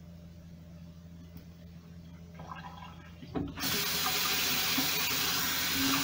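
Bathroom sink tap turned on a little over three seconds in, with a knock as it opens, then water running hard into the basin. Before that there is only a low steady hum.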